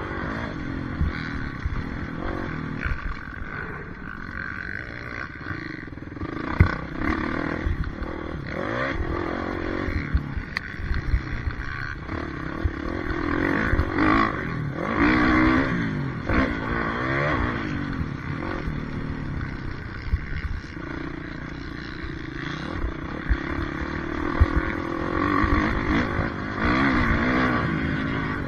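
Motocross dirt bike engine heard from onboard, revving up and falling back again and again as the rider works the throttle around the track, with scattered knocks and clatter from the bike over bumps.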